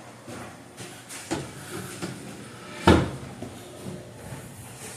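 Wooden cabinet doors on a homemade aquarium stand being swung open and shut on their hinges: a few light clicks and one louder knock about three seconds in.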